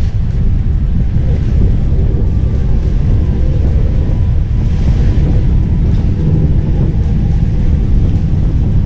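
Steady low rumble of an Egg Harbor sport-fishing boat's engines running underway, with a haze of wind and wake noise over it.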